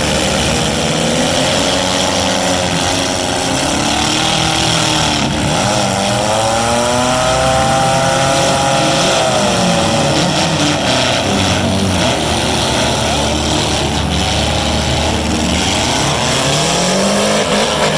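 Several four-cylinder demolition derby car engines running hard together, revving up and down as the cars drive at each other.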